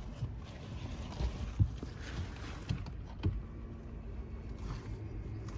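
Low rumble with several dull knocks, the loudest about a second and a half in and another about halfway through.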